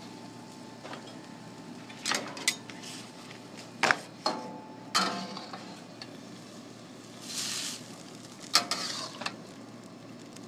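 Metal spatula scraping and knocking against a metal wok as a chicken and vegetable stir-fry is tossed, in a series of sharp strokes, while the food sizzles in the hot pan.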